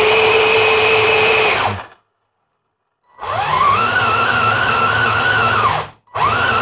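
Electric track motors and gearboxes of an RC Ripsaw stunt tank whining as the tracks spin with the tank held in place. A run of about two seconds stops, then after a pause a longer run rises to a steady, different pitch, and a short burst starts near the end.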